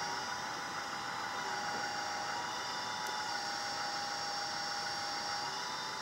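Hydraulic pump of a 1/14 scale LESU RC backhoe loader running with a steady whine while the backhoe arm and bucket are worked. Its pitch dips slightly a couple of times.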